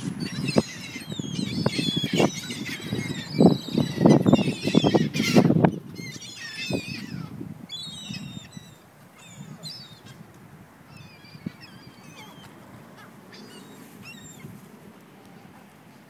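A flock of gulls calling, many short overlapping cries, dense for the first six seconds and thinning out after that. Heavy low buffeting comes in gusts through the first six seconds and is the loudest sound.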